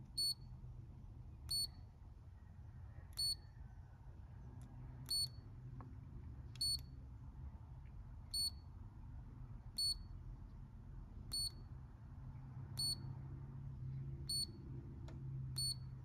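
Ultragauge MX OBD2 gauge beeping on each press of its button as its menu pages through the gauge list: short, identical high beeps, about one every second and a half, over a low steady hum.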